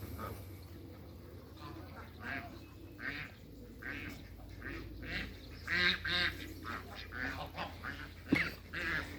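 Ducks quacking and calling in short repeated bursts, busiest around the middle. One sharp knock near the end.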